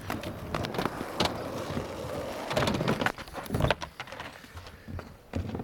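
Skateboard wheels rolling over asphalt, with several sharp clacks of the board striking the ground and ramp. The rolling dies down after about three and a half seconds.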